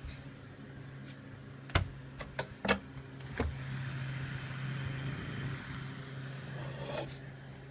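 KDK 15WUE window-mount exhaust fan running: a steady motor hum under a rush of moving air that swells through the middle. A few sharp clicks and taps come around two to three seconds in.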